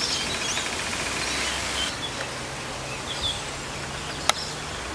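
Backyard outdoor ambience with scattered short bird chirps over a steady hiss and a faint low hum; a single sharp click about four seconds in.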